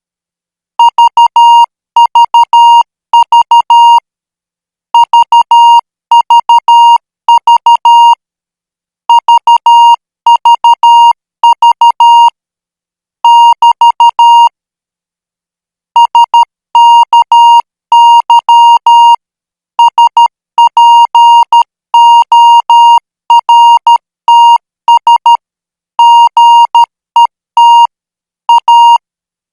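Morse code practice signal sent at 12 words per minute: a single steady beep tone keyed on and off in dots and dashes, grouped into characters with short gaps between them and one longer pause around the middle.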